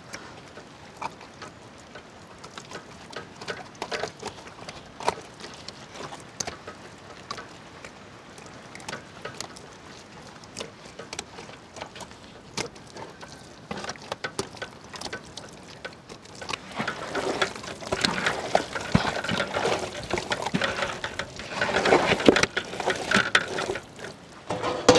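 Hands rubbing wet masala paste into whole pearl spot fish in a large aluminium pot: soft wet squelches and slaps with scattered clicks, getting louder and busier about two-thirds of the way in.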